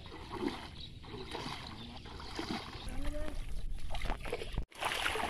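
Shallow pond water sloshing and splashing as a person wades through it and grabs at netted fish with his hands. The sound cuts out sharply near the end, and the splashing comes back louder.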